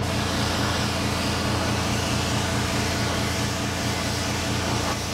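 Gravity-feed paint spray gun hissing steadily as it sprays metallic paint onto a motorcycle fairing. The hiss starts as the trigger is pulled, over a steady low motor hum.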